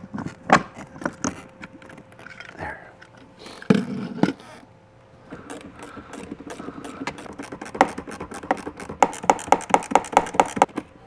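Hands working cables and plastic fittings inside a boat's dash console: scattered clicks, knocks and scrapes, then a quick, even run of clicks near the end.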